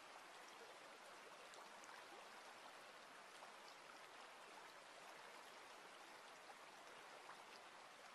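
Faint, steady trickle of a shallow stream running over pebbles and stones, with small scattered drips.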